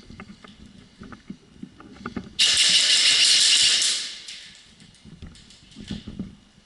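A loud hiss that starts suddenly about two seconds in, holds for about a second and a half, then fades away; faint rustling and small ticks around it.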